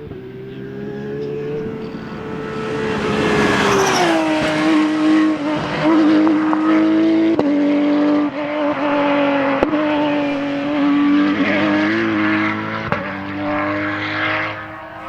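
Rally car engine at high revs, growing louder as it approaches. About four seconds in the engine note drops sharply, then it keeps running hard with small pitch changes and a few sharp cracks before it fades near the end.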